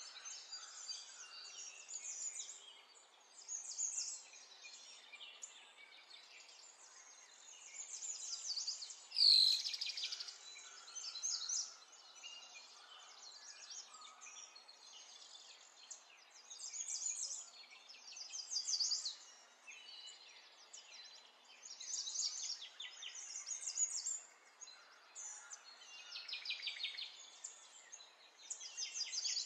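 Birds chirping and singing in repeated bursts of high calls, with one brief louder sound about nine seconds in.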